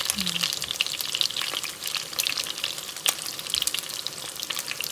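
Chicken pieces frying in their own rendered fat: a steady sizzle with dense, rapid crackling pops.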